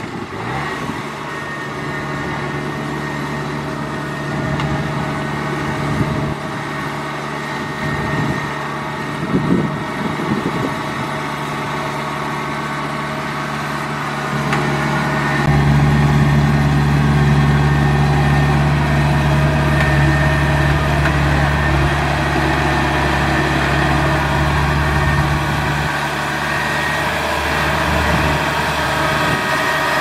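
Kubota DC70 combine harvester's engine running steadily as the machine works a rice paddy, growing louder and deeper about halfway through.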